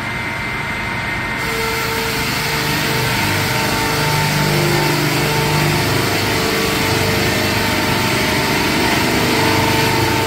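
Murka PR Forta-630 two-shaft circular-saw canter (two 37 kW motors) sawing a 450 mm log lengthwise with six saws at full speed. It is a loud, steady machine din with a hum and whine running through it. About a second and a half in it turns brighter and louder as the saws bite into the log.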